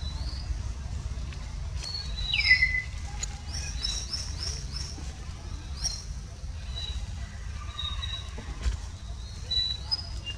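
Birds chirping in short high notes that fall in pitch, several in quick runs of three or four, with one louder, lower falling call about two and a half seconds in, over a steady low rumble.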